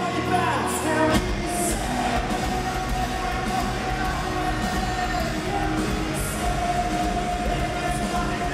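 Rock band playing live in a concert hall, with held sung notes over guitars and drums, heard loud from within the audience.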